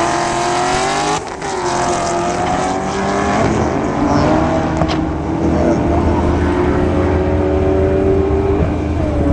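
A 2010 Camaro SS's supercharged 6.2-litre V8 and a Mustang at full throttle down a drag strip, their engine notes climbing in pitch. The notes drop at gear changes, the first about a second in.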